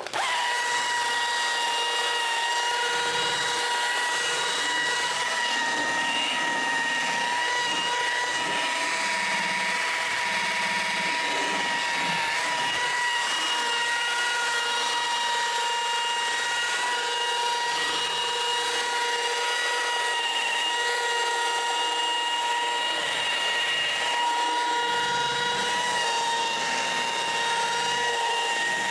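Orbital car polisher running steadily on paint, a continuous high whine that comes on abruptly at the start and holds an even pitch throughout.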